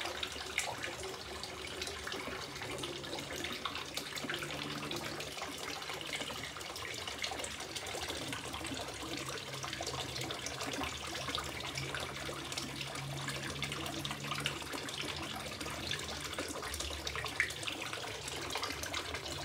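Water from a small fountain spout and a filter outlet pipe splashing steadily into a garden fish pond.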